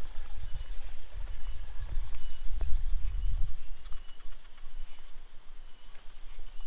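Irregular low rumbling on the microphone, loudest in the first few seconds and easing off about four seconds in.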